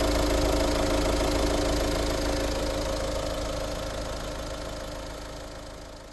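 Opel Insignia B's 2.0 CDTI B20DTH four-cylinder turbodiesel idling steadily on its newly replaced camshaft timing chain. The sound fades away over the last few seconds.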